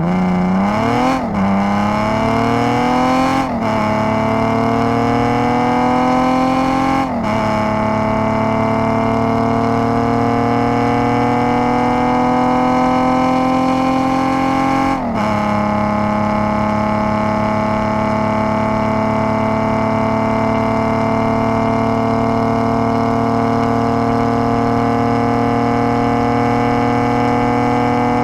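V8 engine accelerating hard through the gears: the pitch climbs and drops sharply at each upshift, four times in quick succession early on and the last about halfway through, then rises slowly and steadily in top gear.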